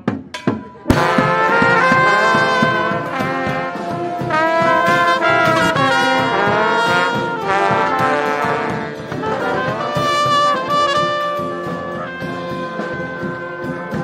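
Street brass band playing a loud, up-tempo tune on trombones, trumpets, saxophones and sousaphones over a bass drum. A few drum strokes open it, and the whole band comes in about a second in.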